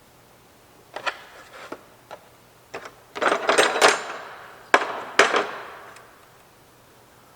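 Clicks, taps and rattling of small hard tool parts being handled: a few scattered clicks, a denser clatter, then two sharp knocks.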